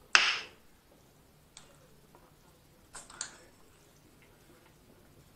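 Quiet eating sounds: a short sharp hiss just after the start, a faint click, then a couple of brief wet mouth smacks about three seconds in, as egg and seafood are chewed.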